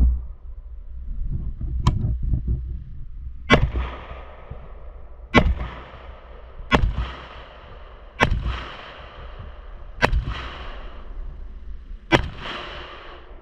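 Firearm shots fired singly at an unhurried pace, seven in all, roughly one every one and a half to two seconds, each followed by a ringing echo.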